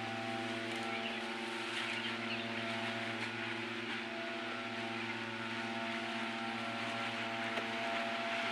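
Small engine of a handheld tea harvester running steadily at an even speed.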